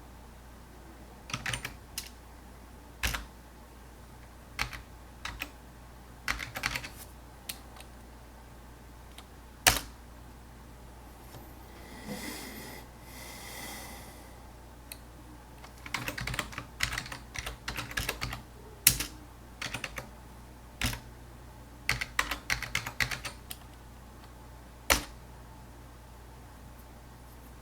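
Computer keyboard typing: scattered single keystrokes and quick runs of keys, with a few louder clicks. A soft hiss comes in for about two seconds around the middle.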